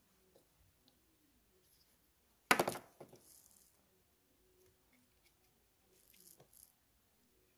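Handling noises from parts on a workbench: one sharp knock about two and a half seconds in, then a few faint clicks near the end.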